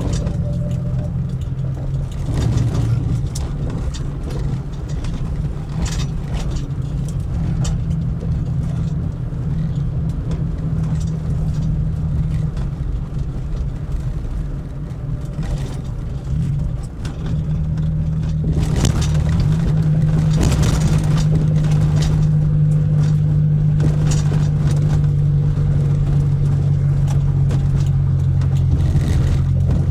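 Car engine and road noise heard from inside a moving car: a steady low drone that grows louder about two-thirds of the way through.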